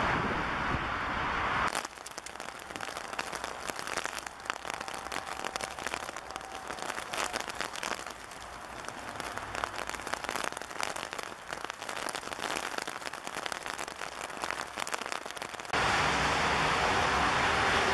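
Hailstorm: a dense, crackling patter of hailstones and rain pelting down, cutting in suddenly about two seconds in after steady jet engine noise from a climbing airliner. Near the end, the engine noise of a Lufthansa Regional CRJ-900 on approach cuts back in.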